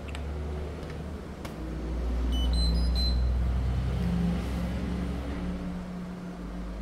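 Washing machine's control panel powering up: a click, then a short run of rising electronic beeps about two seconds in, over a low steady hum that swells and then dies away near the end.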